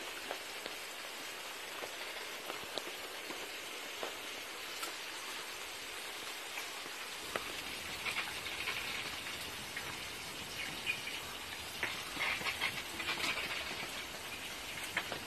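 Young pigs feeding and rooting close by: a steady hiss of snuffling and chewing with scattered clicks. It gets busier about halfway through and again near the end.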